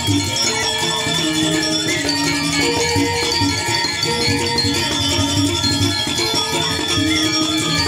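Balinese gamelan music playing continuously: a stepped melody of held metallic notes over a steady low pulse.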